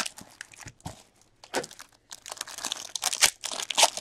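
Wrapper of an Upper Deck Black Diamond hockey card pack crinkling and tearing as it is opened by hand, in irregular crackles that grow denser in the second half.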